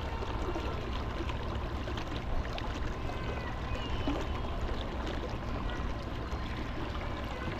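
Steady trickling water over a low rumble, with a few faint high chirps about three to four seconds in.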